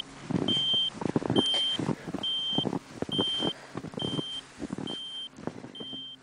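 Backcountry Access Tracker avalanche beacon in search mode beeping with a buried beacon's signal: a high beep about once a second, seven times, at an even pace. Crunching footsteps in snow, louder than the beeps, fall between them.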